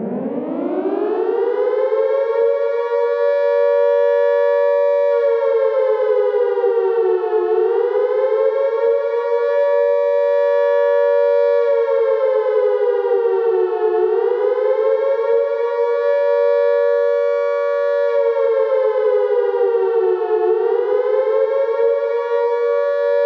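Air-raid siren winding up from a low growl to a loud steady wail over the first few seconds, then holding, with its pitch sagging and climbing back about every six and a half seconds. It sounds the warning of an air raid as war breaks out.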